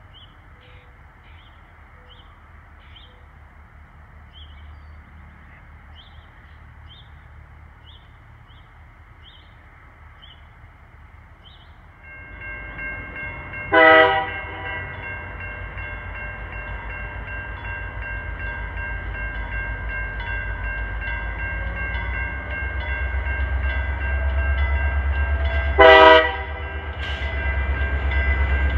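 Railroad grade-crossing bell ringing steadily while an approaching train's low rumble grows louder, with two short locomotive horn blasts about twelve seconds apart. Before that, only faint outdoor background with small high chirps.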